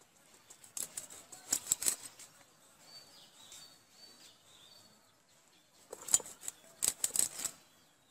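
Pieces of fish scraped against the edge of a boti, the foot-held curved kitchen blade, in two bursts of rapid rasping strokes, the first about a second in and the second about six seconds in. Faint bird chirps in between.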